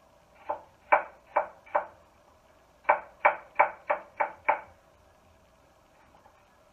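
Knife chopping peeled apple on a wooden cutting board: four strokes, a pause of about a second, then six quicker strokes, about three a second.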